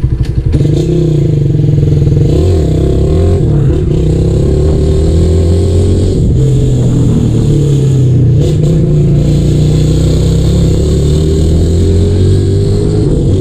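150 cc fuel-injected motorcycle through an old Roncar exhaust with its baffle removed, so it runs very loud. It idles with a loose, pulsing beat, then about half a second in it pulls away, revs rising and dropping again and again as it accelerates.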